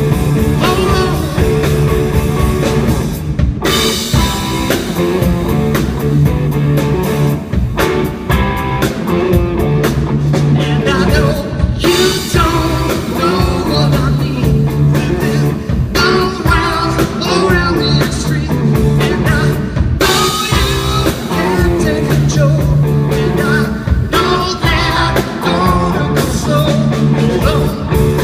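Rock band playing live, with drum kit and electric guitar, in a stretch of the song without sung lyrics. Sharp accents mark new sections about 3.5, 12 and 20 seconds in.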